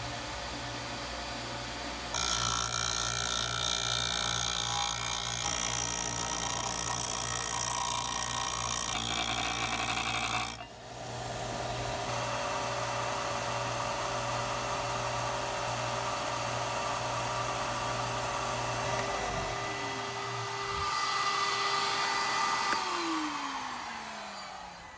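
Bench belt-and-disc sander running, with a part pressed against it for about eight seconds early on, a louder grinding hiss. Later the sander's hum stops and its pitch falls as it winds down, and near the end a second machine's motor is switched off, its whine falling away.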